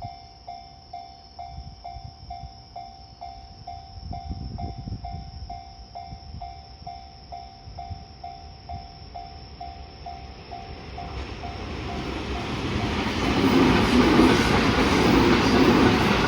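Japanese level-crossing warning bell ringing steadily, about two rings a second. About eleven seconds in, a train's noise rises and the train runs past loudly, drowning out the bell.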